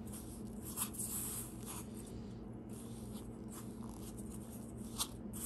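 Spoon stirring and scraping a thick paste of honey and collagen powder in a small bowl, in soft, irregular strokes.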